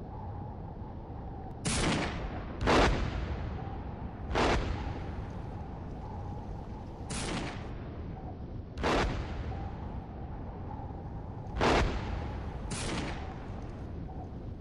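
Battlefield gunfire and artillery blasts: seven sharp reports at uneven intervals, each with a short echoing tail, over a steady background hiss with a faint hum.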